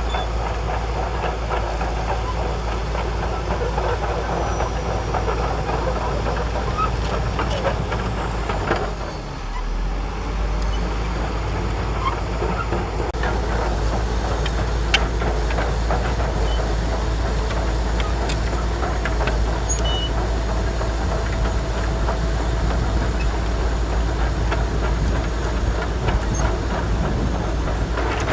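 Shantui DH17C2 crawler bulldozer's diesel engine running under load, with its steel tracks clanking as it pushes sand. The sound dips briefly about nine seconds in, and a steady whine joins from about halfway.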